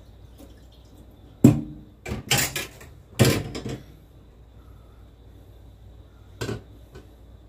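Kitchenware being handled and set down on a counter: a sharp knock about a second and a half in, a run of clattering knocks over the next two seconds, and one more knock near the end.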